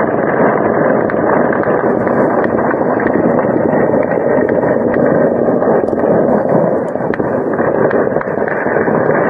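Sustained gunfire: a continuous dense crackle of shots, with sharper single cracks standing out now and then.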